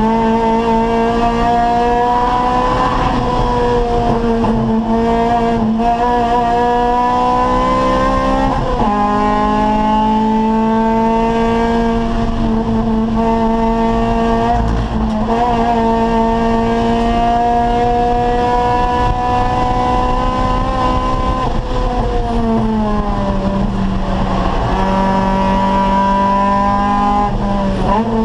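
Acura Integra Type R race car's VTEC four-cylinder engine running hard at racing speed. Its pitch climbs slowly and then steps down several times as gears change, with some tire squeal.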